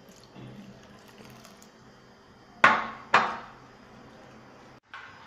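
Two sharp knocks about half a second apart, a little past halfway, over faint background noise.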